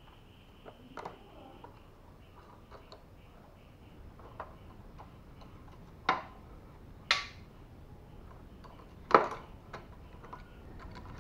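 Scattered sharp metallic clicks and knocks of hand tools and loose parts while a motorcycle is being dismantled, a few seconds apart, with the loudest knock about nine seconds in.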